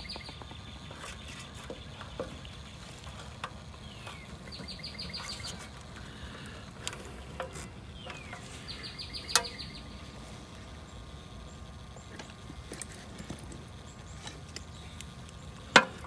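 Insects chirping in short pulsed trills that come back a few times, over a low steady hum. Scattered clicks come from hands working among wires and terminals, with a sharp click near the end.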